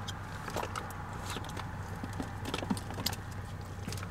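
Rummaging sounds: scattered soft clicks and crinkles as a plastic water bottle is searched for and handled inside a car, over a steady low hum from the car.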